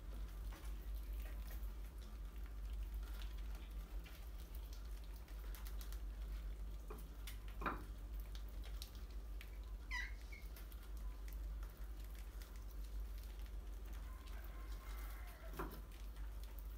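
Rats scrabbling and pattering around plastic jar water traps on a tiled floor: scattered small clicks, scratches and taps, a couple of sharper knocks, and a brief high falling squeak about ten seconds in. A low steady hum sits underneath.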